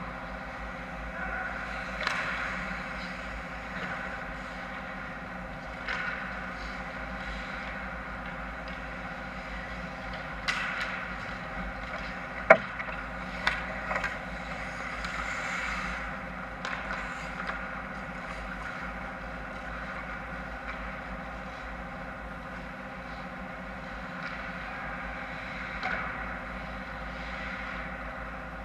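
Ice hockey game sounds in an indoor rink: skates scraping the ice and sticks and puck clacking, over a steady background hum. One sharp crack, the loudest sound, comes about twelve seconds in.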